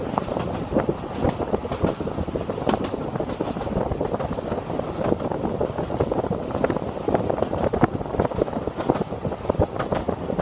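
Narrow-gauge railway carriage running along the track: a steady rumble with many irregular small clicks and rattles from the wheels and coachwork.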